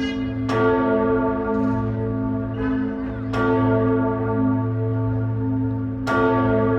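Old church bell tolling: three strong strokes about three seconds apart, each ringing on over a deep, lasting hum, with a lighter, brighter stroke between the first two.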